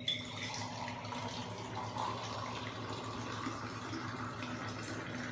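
Water being poured from a glass into a steel cooking pot, a steady splashing pour, with a short clink of the glass at the start.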